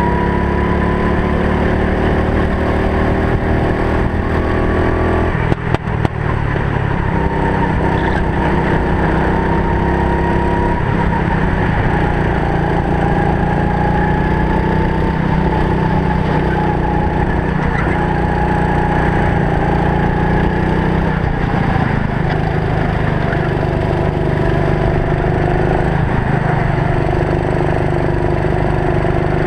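Racing kart's small engine running under load, its pitch rising and falling through the laps, with a brief drop about six seconds in. Heard from a helmet-mounted camera.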